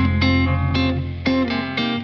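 Background music led by guitar, quick plucked notes about four a second over a steady low bass that drops out near the end.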